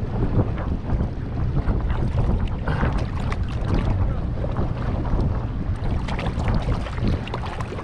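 Wind buffeting the microphone in a steady low rumble, over sea water washing and splashing around the shoreline rocks.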